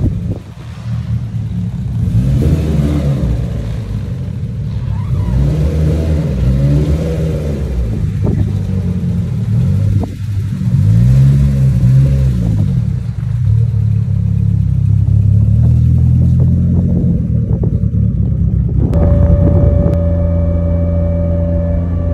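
Mitsubishi Lancer Evolution driving, its engine and drivetrain noise rising and falling in pitch several times, then settling into a steady drone with a distinct whine near the end. It is a drivetrain noise still there after a rear differential replacement, which the owner suspects comes from the transfer case or the transmission.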